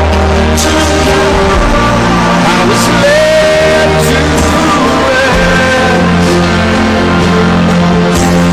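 Music: a song with a sung vocal line over steady instrumental backing.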